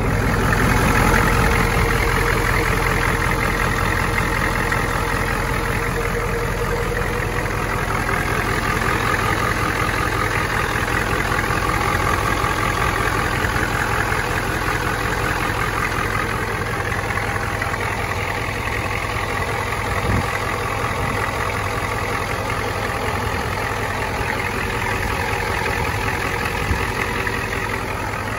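1993 Ford F-250's 7.3 L IDI V8 diesel idling steadily while still warming up after a cold start, running smoothly like a healthy engine.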